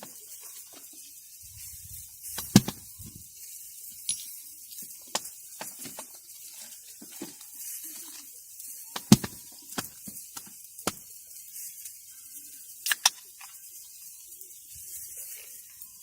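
Camp cooking handling: scattered sharp knocks and clicks of utensils and cookware, loudest about two and a half seconds in, around nine seconds and near thirteen seconds, over a faint steady hiss.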